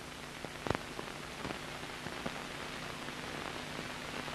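Steady hiss and faint low hum of an old analog soundtrack, with a few scattered clicks, the loudest about two thirds of a second in.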